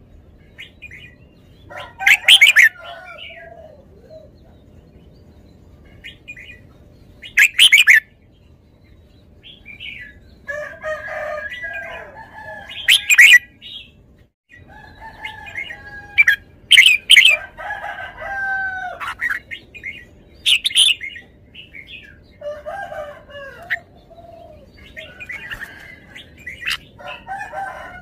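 Red-whiskered bulbul singing: short, loud, bright phrases every few seconds, with softer, lower warbling phrases between them.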